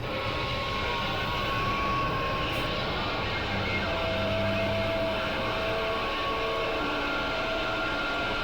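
CB radio receiver hissing with static, faint steady whistling tones drifting in and out over it.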